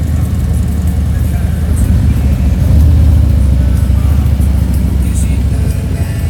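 Touring motorcycle engines running low and steady as the bikes roll at walking pace in a slow column.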